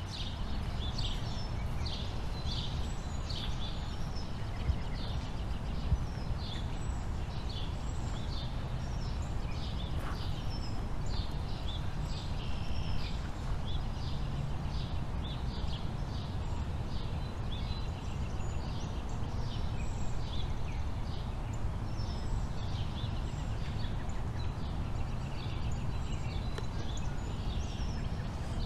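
Birds chirping over and over above a steady low background rumble.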